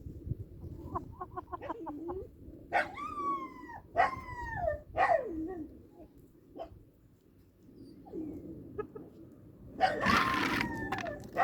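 Farm animal calls: a quick run of short clucking notes about a second in, then several falling calls with many overtones, and a louder, harsher call near the end.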